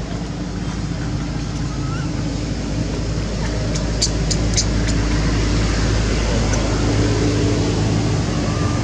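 A motor engine running steadily with a low hum and rumble, growing a little louder, with a few short sharp high clicks about four seconds in.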